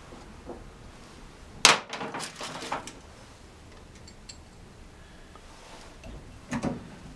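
Steel parts clinking as a ball bearing and a pressing sleeve are handled and set onto a motorcycle gearbox input shaft under a hydraulic press. There is one sharp clink about one and a half seconds in, a few lighter clinks just after it, and more clinks near the end.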